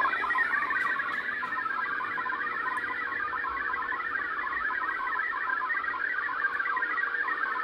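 Shortwave radio receiving a digital data signal: a steady, high-pitched warble of many short tones hopping rapidly up and down. It sounds like MFSK, which the listener takes for a Shortwave Radiogram sending a picture.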